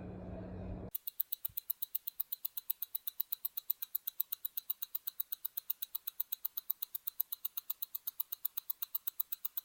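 A 1930s German Thiel alarm pocket watch ticking steadily, about six to seven crisp, even ticks a second from the running escapement. The ticking starts abruptly about a second in, cutting off a short low steady hum.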